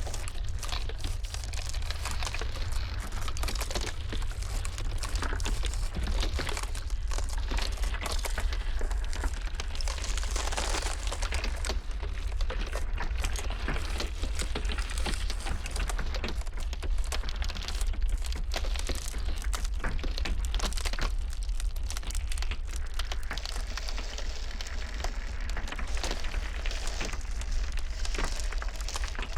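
Ice cracking and crackling: a dense, irregular stream of small sharp cracks and pops over a steady low rumble.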